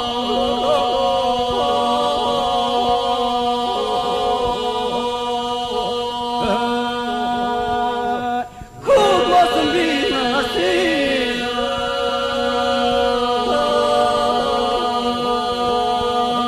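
Unaccompanied Albanian iso-polyphonic singing by a male group: the group holds a steady drone (the iso) while solo voices lead and answer in moving lines above it. The singing breaks off briefly about eight and a half seconds in, then resumes.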